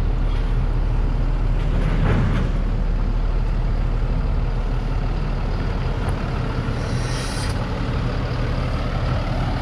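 Diesel engine of a 2017 International 4300 box truck idling steadily, with a short hiss about seven seconds in.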